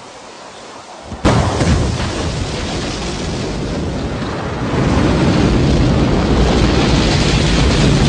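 Rocket launch roar: a sudden loud rush of engine noise starts about a second in, then steps up louder just before five seconds in and holds as a deep, steady rumble.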